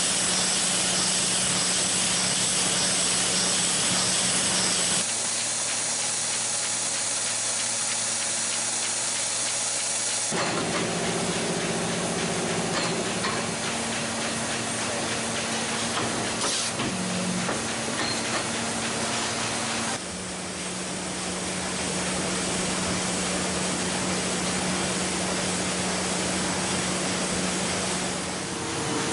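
Printing press running: a steady mechanical hiss and whir over a low hum, changing abruptly about five, ten and twenty seconds in.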